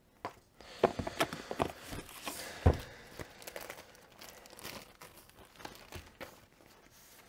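Paper leaflets and cards rustling and flicking as they are handled and shuffled, busiest in the first few seconds, with one sharper knock a little under three seconds in, then quieter rustling.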